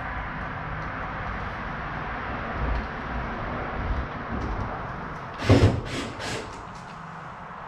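Sheet-metal front panel of a front-load dryer being handled and seated onto the cabinet: a steady scraping rustle, then one loud clunk about five and a half seconds in and two lighter knocks just after.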